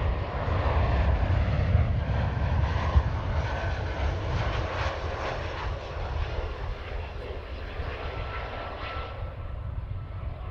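Airbus A320 jet airliner on final approach with its landing gear down: its jet engines give a steady rumble and rush that slowly eases as it passes. A faint steady whine shows near the end.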